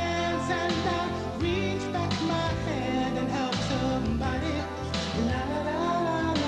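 A slow song: a solo voice singing long, sliding notes over steady instrumental accompaniment.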